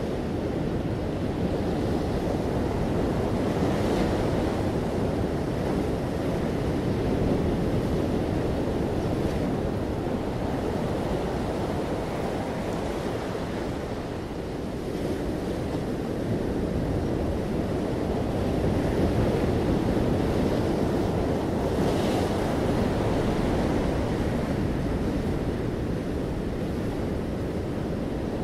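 Steady low rushing noise that slowly swells and eases, with a couple of faint ticks.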